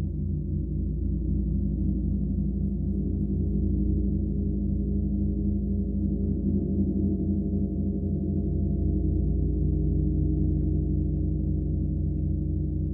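A gong droning in a sustained low, shimmering wash of overlapping tones, kept sounding without distinct strikes.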